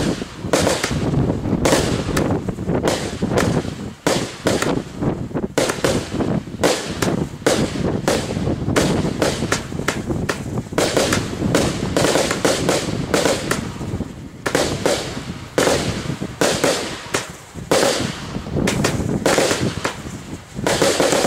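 Consumer fireworks going off in a dense, rapid string of sharp crackling pops and bangs, with a few short lulls.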